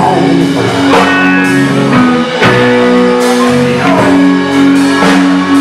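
Live blues-rock band playing an instrumental passage: electric guitar with long held notes over bass and drums, no vocals.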